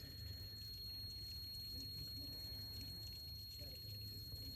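Water being poured faintly into an upflow evaporator coil and its drain pan, filling the pan to test when the condensate overflow safety switch trips.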